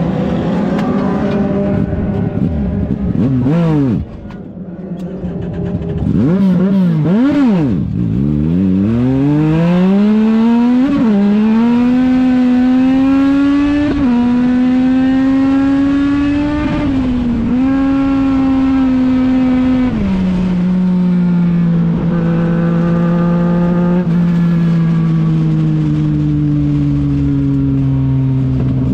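Legend car's Yamaha motorcycle engine heard from inside the car while racing on dirt. The revs drop sharply about four seconds in, blip and dip, then climb steadily for several seconds and hold high with brief dips as the throttle lifts. About twenty seconds in they step down to a lower pitch that sinks slowly.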